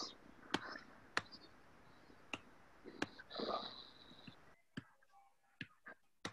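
Faint, irregular clicks of typing and mouse use at a computer, about eight in all, with a short breathy sound about three and a half seconds in. The background hiss cuts out near five seconds.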